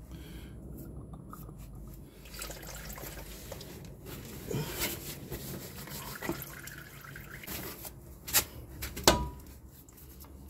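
Spin-on oil filter being unscrewed by hand from a Honda Odyssey V6's oil filter adapter housing, with engine oil trickling and dripping out around it. Two sharp clicks less than a second apart near the end.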